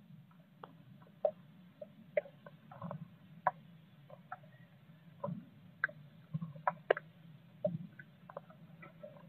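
Irregular sharp ticks and scratches as an adult blue tit shuffles and settles over its newly hatched chicks in the nest box, over a low steady hum.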